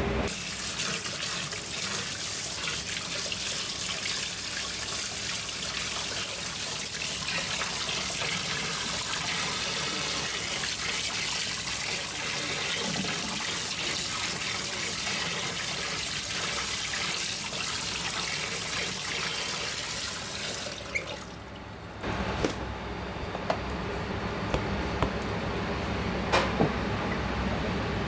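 Tap water running and splashing into a stainless steel sink as an eel fillet is rinsed under the stream by hand. The water stops after about twenty seconds, leaving a steady low hum with a few sharp clicks.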